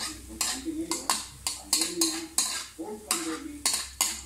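Metal spatula scraping and stirring around the bottom of a wok: an uneven run of sharp scrapes, two or three a second.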